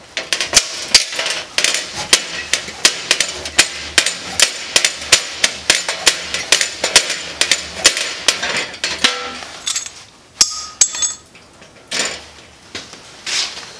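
Sharp metal clicks and taps, about three a second, from a screwdriver working at the knockout in a breaker panel's sheet-metal cover. The clicks thin out to a few scattered ones after about nine seconds.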